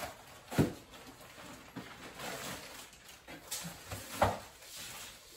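Food packages being handled and packed into a chest freezer: plastic rustling, with two sharp knocks, about half a second in and again near the end.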